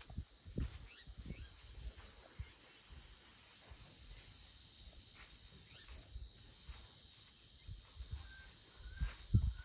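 Steady high chirring of insects, with a few low thumps near the start and again near the end, and a few short chirps near the end.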